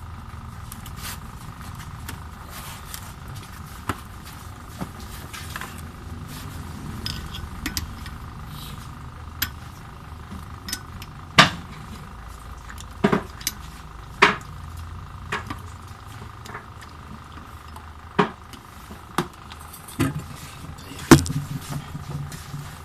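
Metal hand tools clinking and knocking against metal parts under a car: a long socket extension being handled and set in place. It makes a string of sharp clinks, loudest around the middle and near the end, over a steady background hum.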